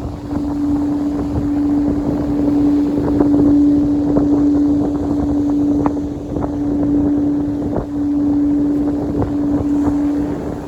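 One steady pure tone from a sound-healing instrument is held throughout, dipping briefly about eight and ten seconds in, under heavy wind noise on the microphone.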